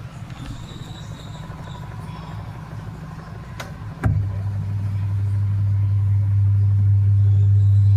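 Washing machine running with a low mechanical hum; about halfway through a click, then a loud, steady electric hum starts up, grows a little louder and cuts off suddenly at the end.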